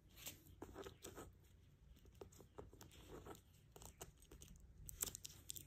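Faint rustling and light clicks from a faux-leather handbag being handled, its strap flap and metal clasp moved, busiest about five seconds in.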